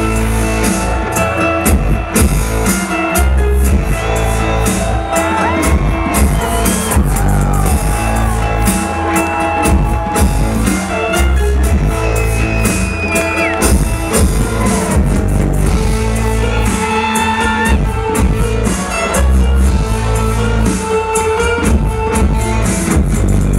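Loud live electronic rock music, with heavy sustained bass, drums, and gliding melody lines above it.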